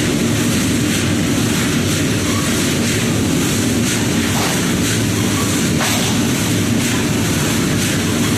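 Steady roar with a low hum from the roasting furnace's burner under a large iron chickpea-roasting pan, with a couple of faint clicks of the pan being handled.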